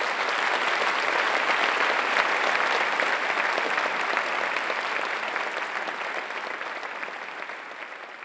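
Large audience applauding, at full strength early on and slowly fading toward the end.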